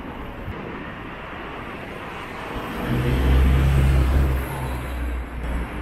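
Town-centre road traffic, with a motor vehicle passing close by; its low engine sound rises about two and a half seconds in, is loudest around three to four seconds, then fades.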